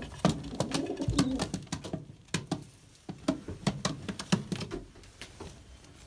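Racing pigeons cooing low during the first two seconds, with scattered sharp clicks and scuffling throughout as the birds shift about in their nest bowl and are handled.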